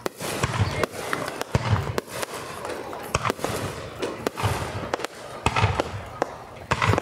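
Fireworks display: aerial shells bursting overhead in quick succession, with deep booms about once a second and sharp cracks and crackling between them.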